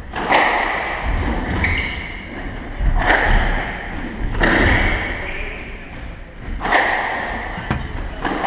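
Squash rally: the ball cracked by the rackets and smacking the court walls, sharp echoing impacts about every one to two seconds, with short squeaks of court shoes on the wooden floor in between.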